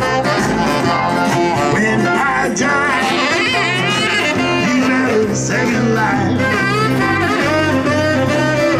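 Live New Orleans-style band playing an instrumental passage, with a saxophone carrying the melody over acoustic guitar, keyboards and a stepping bass line.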